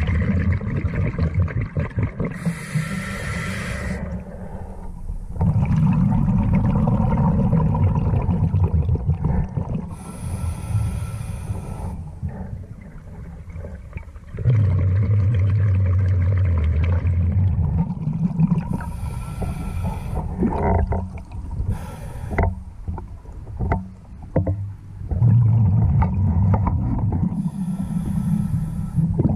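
Scuba diver breathing underwater through a regulator: a short hiss on each inhalation followed by a long low rumble of exhaled bubbles, about four breaths spaced eight to nine seconds apart.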